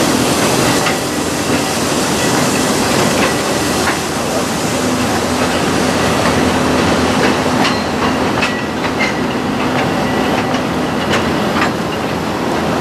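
Narrow-gauge steam train running on the track: a steady, loud rumble with scattered sharp clicks from the wheels and rails.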